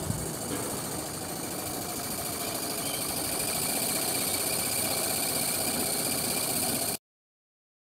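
3/4-inch scale Maxitrak live-steam traction engine standing still and hissing steam steadily, growing a little louder; the sound cuts off suddenly about seven seconds in.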